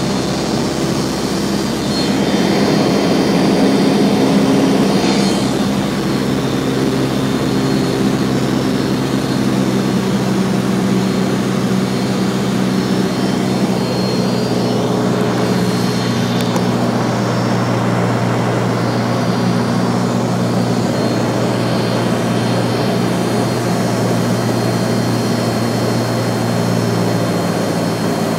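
Cessna 152's four-cylinder Lycoming O-235 piston engine and propeller running with a steady drone during the landing approach. It is a little louder a few seconds in, and its tone changes slightly near the end.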